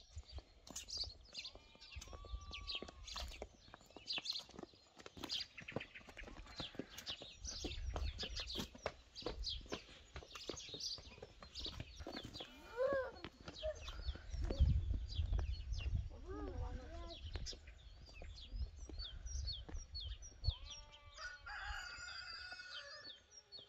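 Chickens calling, hens clucking and a rooster crowing, over short bird chirps and a low wind rumble on the microphone.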